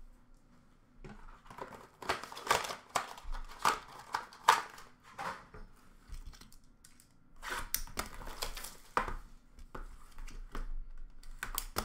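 Plastic wrapper of a hockey card pack crinkling and tearing as it is handled and opened by hand, in irregular bursts of crackling with a short lull midway.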